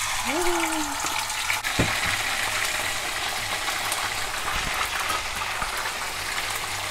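Chicken frying in hot oil in a pan: a steady sizzle with many small crackles and spits. There is a brief hum of a voice near the start.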